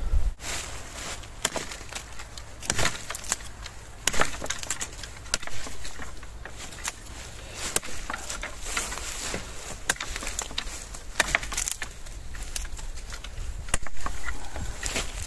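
Dry wood cracking and snapping in a string of sharp, irregular knocks, roughly one every second.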